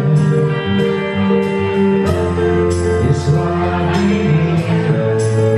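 A live band playing a song: singing over electric guitar, bass guitar and keyboard, with sustained notes and a steady bass line.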